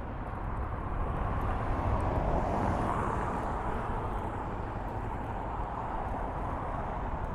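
Road traffic: a steady rush of passing vehicles that swells about three seconds in.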